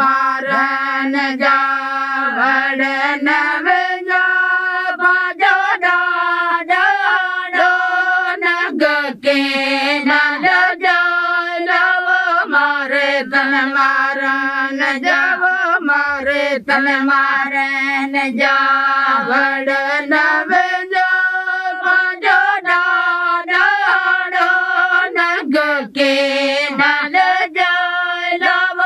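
Women singing a folk song together in unison, long held notes that step up and down between a few pitches without pause.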